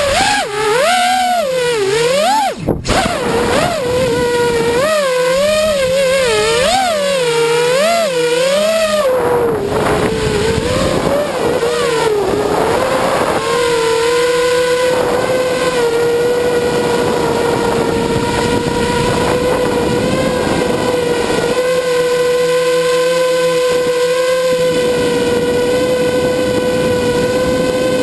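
FPV quadcopter's motors and propellers whining. For the first nine seconds the pitch swoops rapidly up and down with the throttle, with a brief dropout about three seconds in; from about thirteen seconds on it holds an almost steady pitch.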